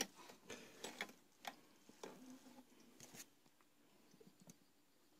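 Near silence, with a few faint, scattered clicks in the first three seconds.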